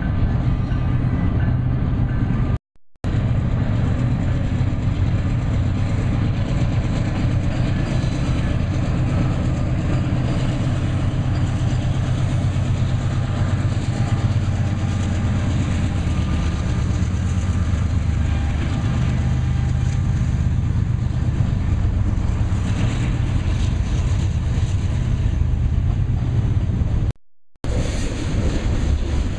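Freight train passing: the diesel-electric locomotives run with a steady low drone over the rumble of the wheels on the track. The sound cuts out briefly twice.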